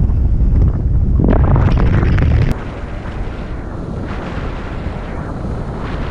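Wind buffeting the microphone of a paraglider's harness-mounted camera in flight, a heavy low rumble that drops abruptly about two and a half seconds in to a lighter, steady wind rush.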